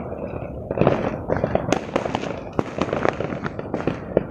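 New Year's fireworks and firecrackers going off all around. A dense, irregular barrage of bangs and pops, several a second, over a steady crackle.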